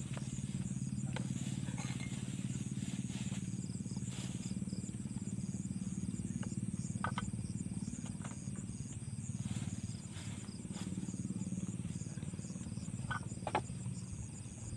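Steady low motor drone, with night insects chirping in a fast, even pulse high above it and a few faint clicks scattered through.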